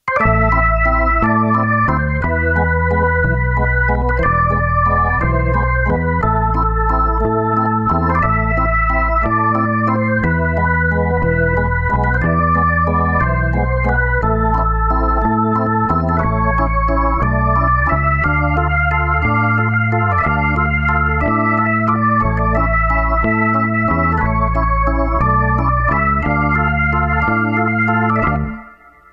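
Background music played on an electronic organ-like keyboard: sustained chords over a repeating bass line, fading out near the end.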